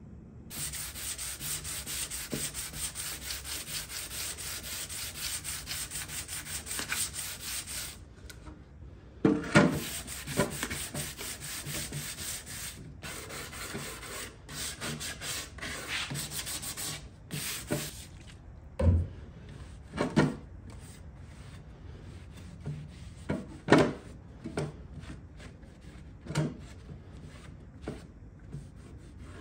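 Hand scuff-sanding the old finish on a wooden drawer front with a sanding sponge: fast, steady scrubbing strokes for the first several seconds. Then slower, broken rubbing with a few sharp knocks of the wood.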